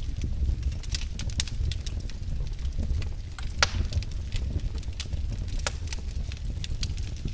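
Wood fire crackling, with irregular sharp pops and snaps over a steady low rumble of burning, and one louder crack about three and a half seconds in.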